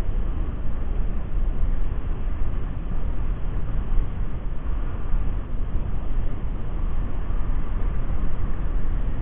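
Wind buffeting the microphone: a steady, rough rushing rumble that is heaviest in the low end and rises and falls in strength, with the choppy sea mixed in.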